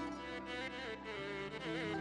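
Instrumental introduction of an Arabic pop song played by a band, with sustained chords under a melody that wavers and turns ornamentally near the end.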